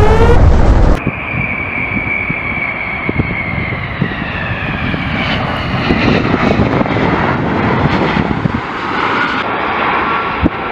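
A Tu-22M3 bomber's two turbofan jet engines running as it touches down and rolls out on the runway, a steady roar with a whine that falls slowly in pitch. Before that, a loud rumble with rising, repeating tones cuts off suddenly about a second in.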